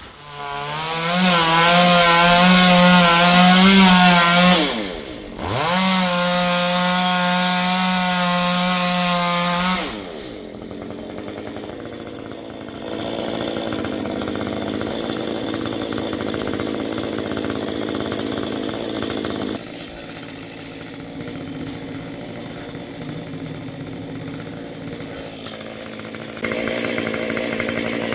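Two-stroke chainsaw at work on a mango trunk. It revs up to full throttle and holds there, drops and swoops back up about five seconds in, and holds high again. About ten seconds in it falls to a lower, rougher, steadier running sound, which shifts in level a few times.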